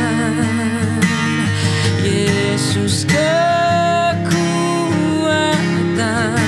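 A man singing a slow worship song with vibrato over a strummed acoustic guitar, holding one long note about three seconds in.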